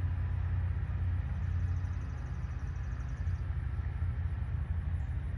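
Steady low rumble with no words. A faint, fast, high-pitched pulsing comes in about a second and a half in and lasts about two seconds.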